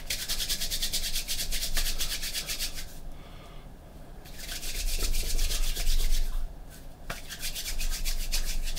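Hands rubbing briskly palm against palm, rolling a lump of masking putty into a ball: a fast, even run of dry rubbing strokes that eases off about three seconds in and picks up again a second and a half later.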